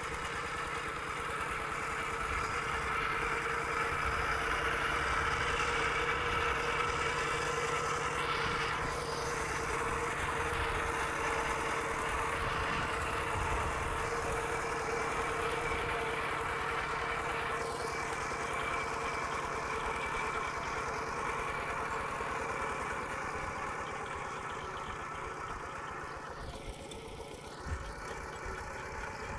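Kubota RT120 walking tractor's single-cylinder diesel engine running steadily and chugging under load as the tractor drives its cage wheels through a muddy rice paddy. It grows slightly fainter toward the end as the tractor moves away.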